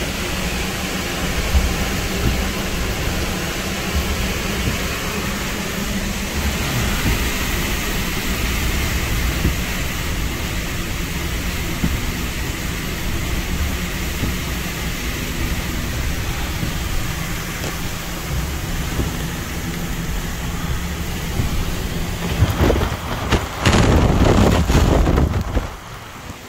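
Hurricane wind and heavy rain roaring steadily. Near the end a louder rush with heavy rumble comes in for about three seconds, then drops off suddenly.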